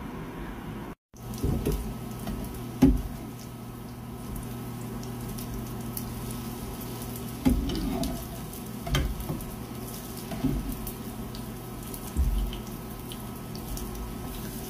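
Patties sizzling steadily in oil in a nonstick frying pan, with a faint low hum underneath. Several sharp knocks and scrapes of a metal spatula and fork against the pan come as the patties are turned, the loudest about three seconds in.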